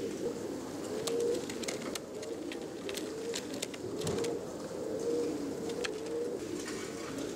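Domestic show pigeons cooing, many coos overlapping without a break, with scattered short sharp clicks.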